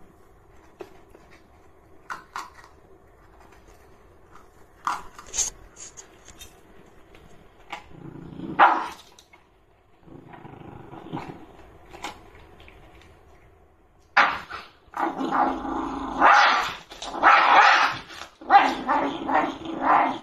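Shiba Inu guarding its food bowl: faint crunching of kibble at first, then a low growl when it is petted, breaking into a run of loud barking and growling in the last third. The sound is food aggression (resource guarding).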